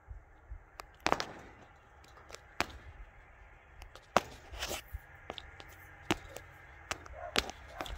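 Scattered sharp clicks and knocks, about eight of them at uneven spacing, the loudest about a second in and about four seconds in.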